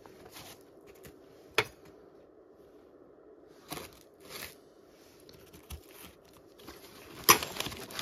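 Old household things being handled among debris: a few short rustles and sharp clicks, the loudest click near the end.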